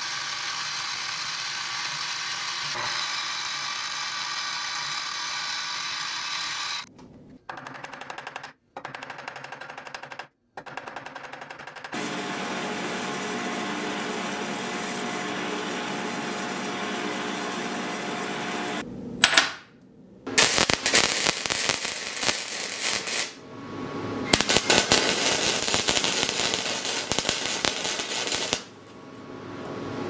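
A drill press boring a small hole in a steel disc, running steadily for several seconds. After a few short quieter clips, a drill press fitted with a sanding drum runs with a steady hum. The second half holds the dense crackle of arc welding on steel rods, in two runs, the second longer, stopping shortly before the end.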